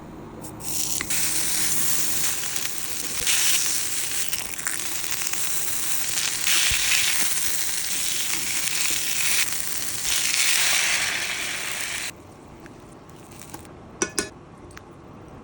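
Pork belly searing in a hot frying pan, sizzling loudly in its fat. The sizzle cuts off suddenly about twelve seconds in, and two sharp clicks follow near the end.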